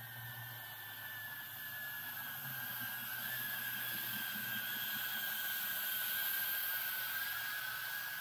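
A small 4S 3-inch cinewhoop quadcopter flying: its motors and propellers whine steadily, the pitch wavering a little and the sound swelling somewhat toward the later part.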